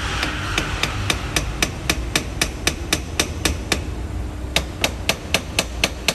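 Hammer knocking on the jammed steering lock motor of a Mercedes-Benz W204, at about four sharp taps a second, with a short pause a little past the middle before the taps resume. The knocks are meant to free the seized motor so the key will turn and the car can start, a temporary fix for a failed motor.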